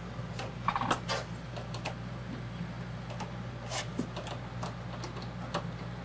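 Scattered light clicks and taps of hands working on parts inside a desktop PC case while taking out the graphics card, over a steady low hum.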